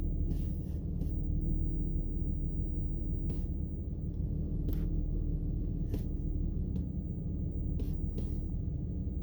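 Steady low hum of an idling vehicle engine, with a few faint short clicks.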